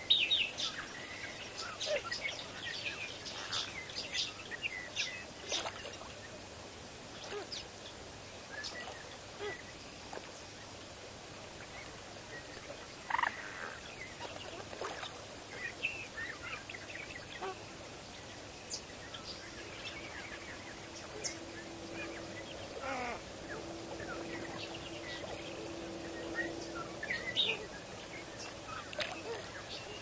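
Waterbirds calling at a wetland: many short, scattered calls and chirps over a steady outdoor background, busiest in the first few seconds. A faint steady hum runs for several seconds past the middle.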